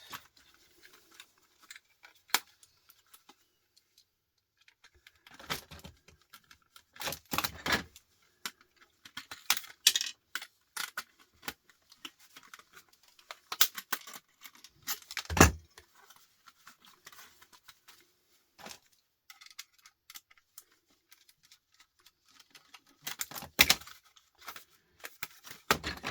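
Small metal and plastic parts of a DVD drive clicking and clattering as it is taken apart, in scattered clusters, with one louder thump about fifteen seconds in.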